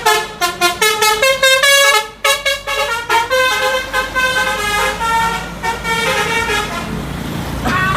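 Indonesian 'telolet' bus horn, a multi-tone musical air horn, playing a melody: quick short notes for about three seconds, then longer held notes, stopping abruptly at the end.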